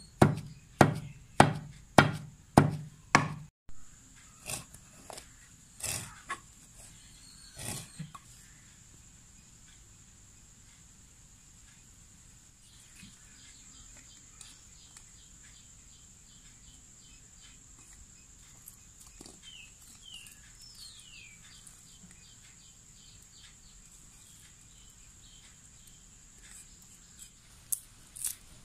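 Pestle pounding manioc leaves in a stone mortar, steady thuds about two a second that stop after about three and a half seconds. A few scattered knocks follow, then a long quiet stretch with a faint high steady whine and a few faint short falling chirps.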